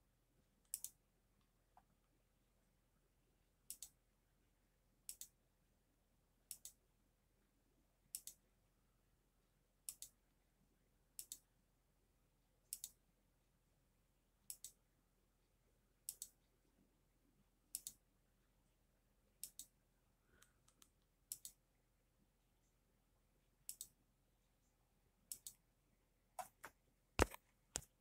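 Computer mouse button clicking, one sharp click or quick press-and-release pair about every one and a half seconds, with the loudest click near the end.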